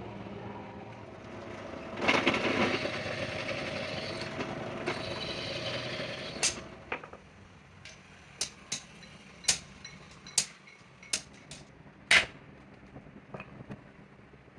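Workshop sounds: a few seconds of steady noisy rushing, then a run of about ten sharp clicks and knocks, like tools and metal parts being handled, at uneven spacing, the loudest near the end.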